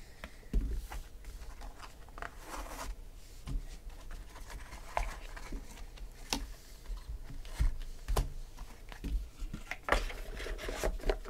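Light handling noises: scattered small clicks and taps with brief plastic rustles as a card in a clear plastic holder is lifted out of a foam-lined cardboard box, handled and set down on a table.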